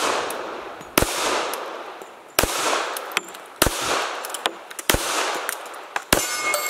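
Sig Sauer P220 .45 ACP pistol fired five times at a slow, steady pace, about one shot every 1.3 seconds, each shot trailing off in a long echo, with lighter clinks between some shots.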